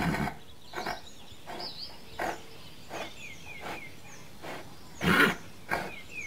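Horse stable ambience: small birds chirping, with a regular run of short, sharp sounds about every three-quarters of a second, the loudest about five seconds in.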